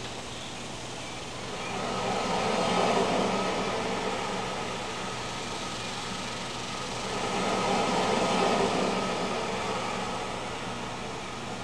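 Outdoor backyard ambience: a rushing noise that swells and fades twice over a steady low hum.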